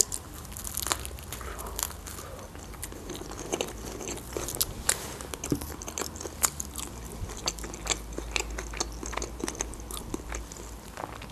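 Close-miked eating of a shawarma wrap: a bite into the lavash-wrapped roll, then chewing with scattered small crunches and wet mouth clicks.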